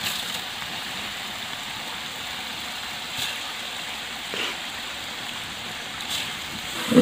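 Steady sizzling hiss from a large aluminium pot of biryani masala cooking over a wood fire as dry rice is added, with a few faint soft clicks.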